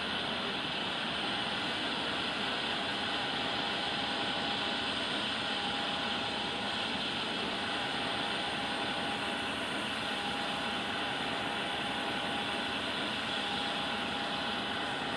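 Boeing 737-800's CFM56-7B jet engines running at idle thrust as the airliner taxis, a steady rushing noise with a faint steady whine.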